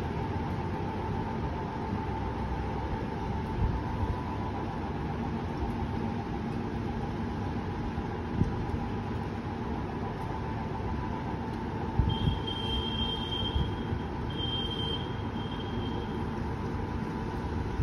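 Storm wind over a city at night, buffeting the microphone in irregular low thumps, over a steady hum. Near the end a high, steady whistle-like tone sounds twice, each time for a second or two.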